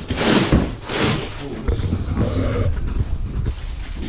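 Cardboard boxes and plastic wrapping being handled and shifted: rustling and scraping, loudest in the first second, with a low rumble in the middle.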